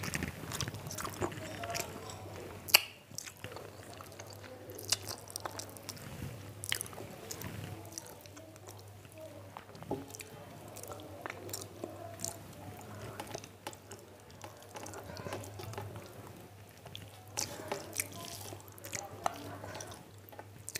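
A person chewing a mouthful of rice and fish curry close to the microphone, with many small wet mouth clicks and smacks. One sharp knock stands out about three seconds in.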